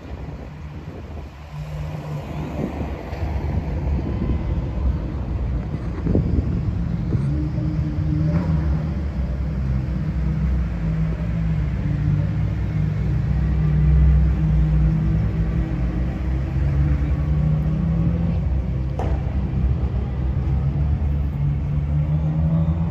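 An engine running with a low, steady rumble and hum that grows louder a couple of seconds in and then holds.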